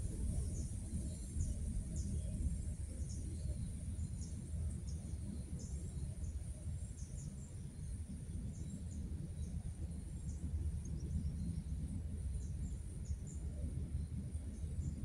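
Outdoor ambience: a steady low rumble under a constant high-pitched drone, with many short high chirps from small birds scattered throughout.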